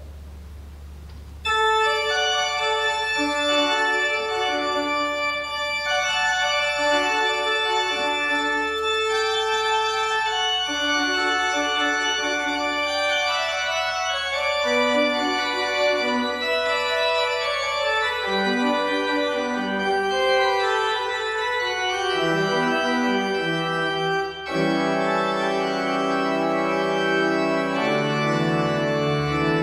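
Organ music: sustained chords with a moving melody, starting suddenly about a second and a half in. After a brief break near the end, deeper bass notes come in.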